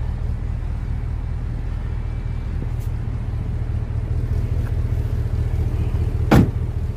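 Ram 1500 pickup's 5.7-litre V8 idling with a low steady rumble. A single loud clunk about six seconds in as the tailgate shuts.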